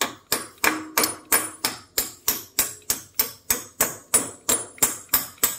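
Hammer driving a steel earthing rod into a hole in a concrete floor: steady metal-on-metal strikes, about three a second, each with a short high ring.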